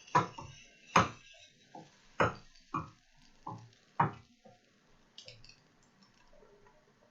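A run of about six light knocks of a kitchen utensil against a frying pan, spaced unevenly over four seconds, then a few faint small clatters.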